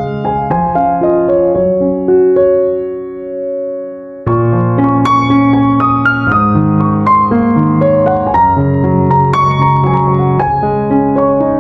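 Background piano music, a gentle keyboard tune. About four seconds in, a held chord fades away, then the tune starts up again, fuller.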